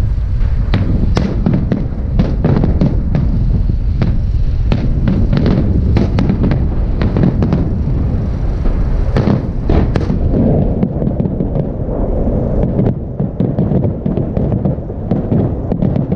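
Aerial fireworks bursting overhead in a large festive salute: many sharp bangs and crackles over a continuous low rumble, the cracks thinning out after about ten seconds.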